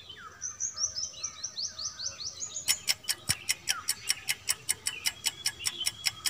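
A quick series of short, high, falling bird chirps. A little under three seconds in, a countdown timer's clock ticking starts up, fast and even.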